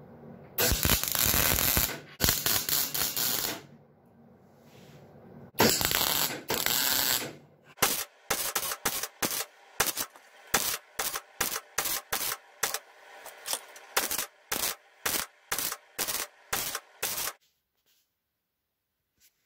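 MIG welder laying short stitch welds on the steel tube door frame: a run of brief bursts of welding crackle, about two a second, through the second half. Before them come two longer, louder stretches of welding noise, the first about three seconds long.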